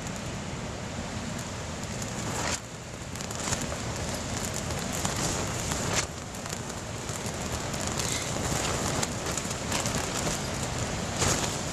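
Very strong wind buffeting a tent, the fabric flapping and crackling with repeated sharp snaps, the strongest about two and a half seconds in, again at about six seconds and near the end.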